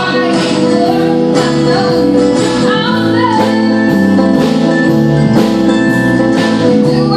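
Live band: a woman singing over a strummed acoustic guitar, a mandolin and a drum kit keeping a steady beat.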